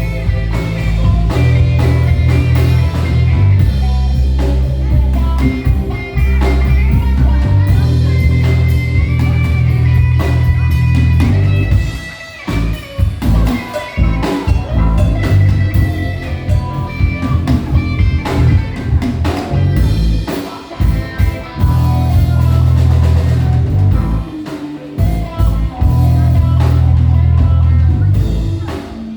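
Live band playing an instrumental: electric bass, drum kit and keys under a melodic lead line. The bass drops out briefly twice, about twelve and twenty seconds in.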